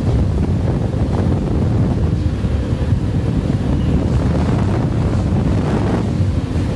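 Air shower jets blowing a steady, loud rush of air over a person in the cubicle, stripping dust from their clothing.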